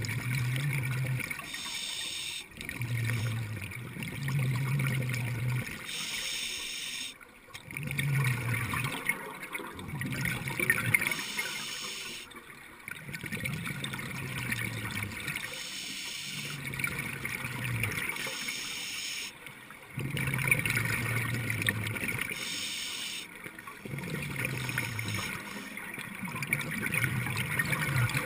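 Scuba diver breathing through a regulator underwater: a short hiss on each inhale, then a longer gurgling rush of exhaust bubbles, repeating about every three to four seconds.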